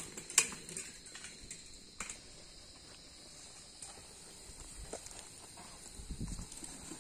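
Steady high drone of insects over quiet outdoor ambience. A few sharp clicks and one loud knock come in the first second, and a low rumble about six seconds in.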